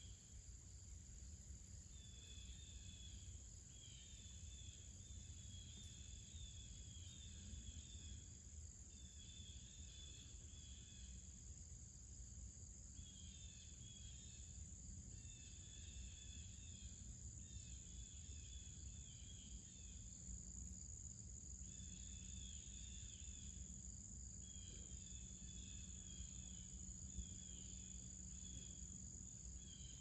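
Faint outdoor chorus of insects: a steady high-pitched drone, with runs of rapid chirping a second or two long that repeat with short gaps.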